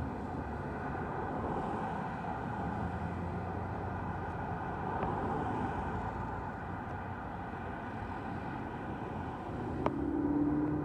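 Cars, a pickup and SUVs driving past on a road, a steady hiss of tyres and engines. About ten seconds in, a steady low horn tone starts: the air horn of an approaching fire engine.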